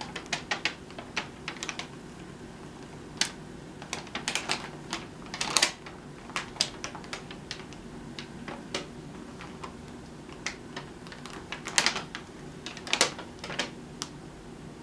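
Stiff paper crinkling and crackling in irregular sharp crackles, bunched into a few flurries, as a cat shifts and settles down onto a paper sheet lining its bed.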